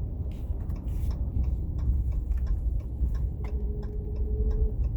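Cab of a 2019 Ram 1500 pickup driving in 4WD Auto: a steady low road and driveline rumble with scattered light clicks and ticks. A faint steady tone comes in about three and a half seconds in and stops about a second later.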